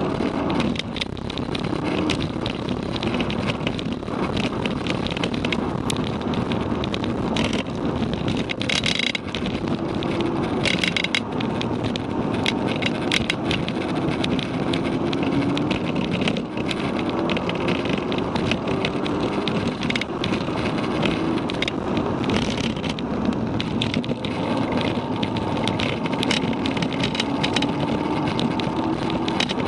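Mk6 Volkswagen Golf GTI's APR Stage 1-tuned, turbocharged 2.0-litre four-cylinder heard from inside the cabin under hard track driving. The engine note rises several times, each climb ending as it drops back at a shift or lift, over steady road and wind noise.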